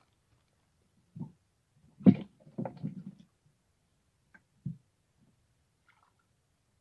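A few short knocks and rustles close to the microphone, the loudest a sharp knock about two seconds in followed by a small cluster: handling noise from a hand working a fishing rod among dry leaves.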